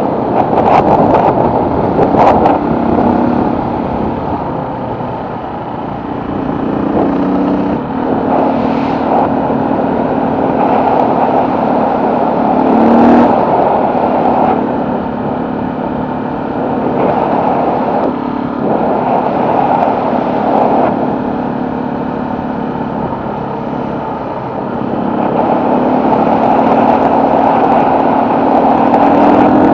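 Engine of the vehicle carrying the camera, running along a road with heavy wind and road noise on the microphone. Its note shifts up and down a few times as the throttle changes.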